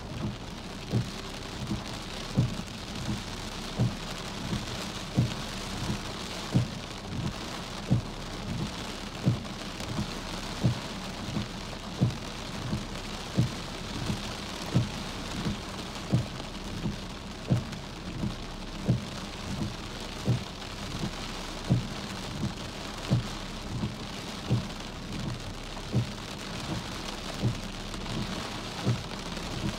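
Steady rain hissing on a car's windows and body. A short low thud comes about once a second, unevenly spaced, and these thuds are the loudest sounds.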